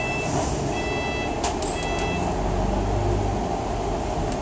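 Bus running with electronic beeps, each about half a second long, repeating about once a second and stopping after about two seconds. The diesel engine's low rumble then builds.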